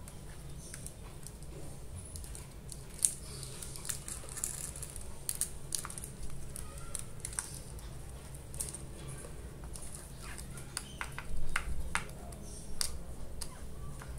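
Fingers digging and scratching through loose sawdust packing in a plastic tub: soft rustling with many small clicks and taps, and a few louder knocks against the container, about three seconds in and again after eleven seconds. A steady low hum runs underneath.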